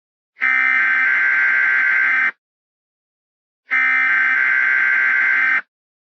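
Emergency Alert System SAME header, the screeching digital data tones that open an alert: two bursts of about two seconds each, with a short silence between them.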